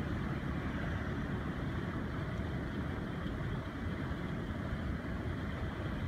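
Wind noise on the microphone: a steady low rumble with an even hiss above it.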